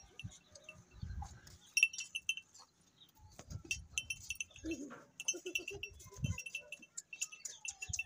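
A short animal call about five seconds in, over rapid high chirps, with a few low rumbling stretches.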